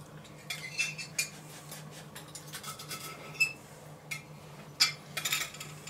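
Knife and fork clinking and scraping on a plate in short, scattered strokes while the skin is cut off a grilled chicken leg, the loudest cluster near the end.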